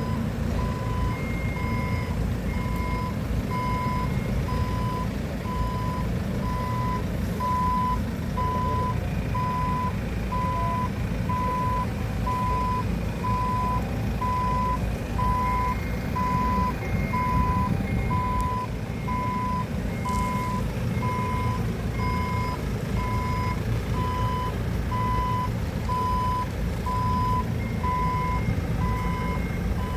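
Heavy-equipment reversing alarm beeping steadily at one pitch, about once a second, over a low engine rumble. A second, fainter alarm beeps at a higher pitch at times.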